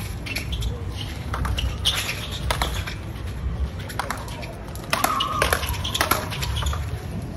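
Speedball rally: racquets hitting the tethered ball in a quick, irregular series of sharp hits, with sneakers squeaking on the court about five seconds in.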